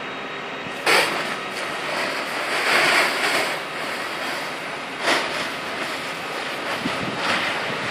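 A fire hose's water jet spraying onto a burning waste container, with a rushing hiss. It starts suddenly about a second in, swells, and starts again twice later, over steady background noise.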